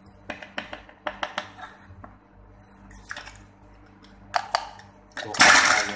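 Stainless steel mesh sieve being tapped and shaken to sift flour into a glass bowl: short clusters of light metallic clicks, then a louder, denser rattle of about a second near the end.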